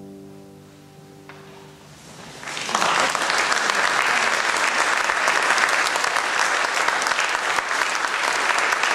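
Last piano chord of the song ringing and fading. About two and a half seconds in, an audience breaks into applause, which quickly swells and stays full and steady.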